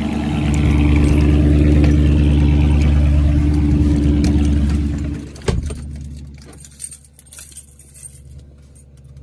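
Dodge Charger SRT 392's 6.4-litre HEMI V8 idling, loud and steady. About five and a half seconds in, a car door shuts with a sharp thud and the engine becomes muffled. Light jingling and clicks of keys follow.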